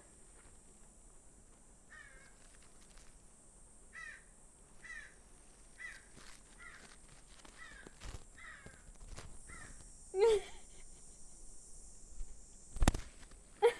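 Common marmoset giving short chirping calls, roughly one a second, close to a small microphone, with a few sharp knocks and bumps as the marmoset grabs and handles the mic, the loudest near the end.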